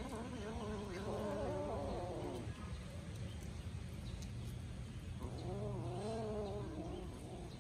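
Kitten giving a wavering, yowling growl while eating raw meat, in two bouts: the first right at the start, the second about five seconds in. It is the warning sound a kitten makes to guard its food from another kitten.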